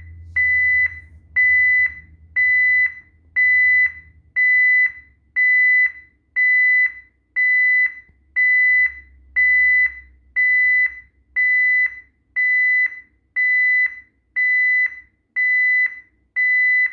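Honeywell ProA7 alarm panel sounding its entry-delay countdown: a steady run of short, high, single-pitch beeps at an even pace. The beeps warn that the door zone has been opened and the system must be disarmed before the alarm goes off.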